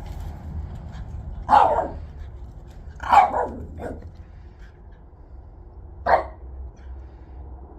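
A dog barking: a few single barks, one about a second and a half in, a pair a little after three seconds, and one more about six seconds in.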